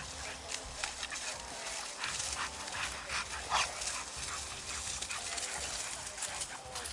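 American Bully XL dogs tussling, with short whimpers and yips over a constant scuffling of paws and bodies.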